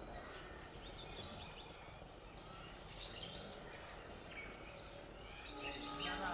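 Birds chirping repeatedly over a faint outdoor background hiss. Near the end a steady pitched tone comes in, and a single sharp click sounds just before the end.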